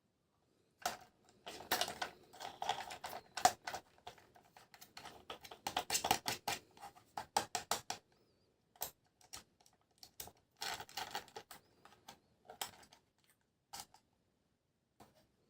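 Toys and their packaging being handled as they are unboxed: rapid clicks, scratches and crinkles of plastic and cardboard in dense bursts, with a short pause about eight seconds in and a few scattered clicks near the end.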